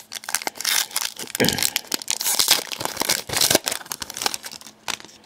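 Foil wrapper of a hockey trading-card pack crinkling and tearing as it is ripped open and handled: a dense run of sharp crackles, thickest in the middle and thinning out near the end.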